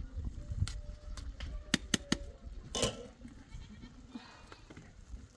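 Livestock bleating: one wavering bleat about three seconds in and a fainter one about a second later, after about five sharp clicks or knocks in the first two and a half seconds.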